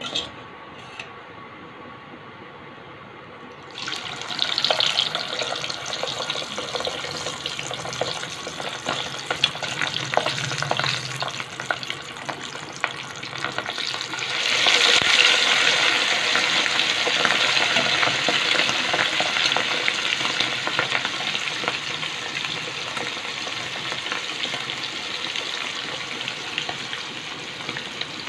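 Prawns deep-frying in hot oil in a wok: a dense sizzle with crackling starts about four seconds in, grows louder about halfway through as the basket of prawns sits in the oil, and then goes on as steady vigorous bubbling.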